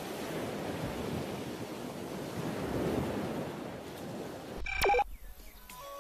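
A steady rushing noise like wind or surf. About five seconds in, a short loud tone falls steeply in pitch and cuts off, and soft melody notes of music begin just after.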